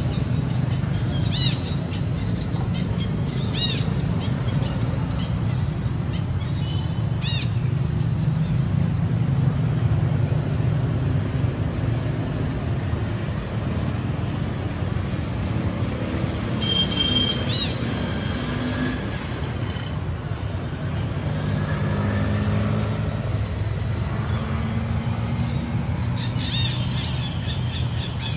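Short high-pitched chirping animal calls, a few at a time and now and then, over a steady low rumble, with a run of squawking calls starting near the end.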